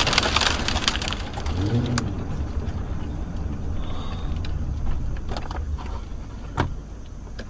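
A car's road and engine noise heard from inside the cabin as it slows down, a steady low rumble and tyre hiss that fade gradually, with a few short clicks in the second half.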